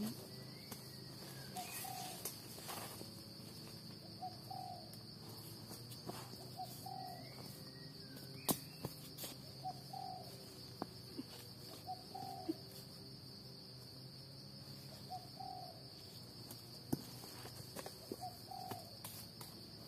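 A dove cooing over and over, a short two-part coo every two to three seconds, over a steady high-pitched insect drone. A few sharp clicks and snaps come from hands and a stick working through dry leaf litter and twigs, the loudest about eight and a half seconds in.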